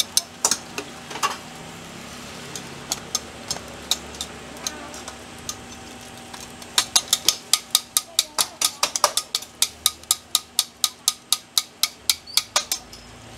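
Metal tongs and spatula clacking against a large round oiled griddle as spring onion pancakes are worked and scrunched, over a steady sizzle. The clacks are scattered at first, then come in a fast, even run of about five a second through most of the second half.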